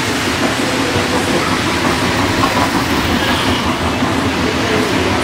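Model electric train running on metal layout track, a steady rolling rumble of wheels and cars.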